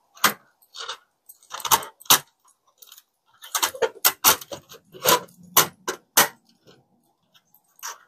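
Hard parts of a rotating jewelry organizer clicking and clattering as they are fitted together by hand: a few scattered clicks, then a quicker run of louder clacks in the middle.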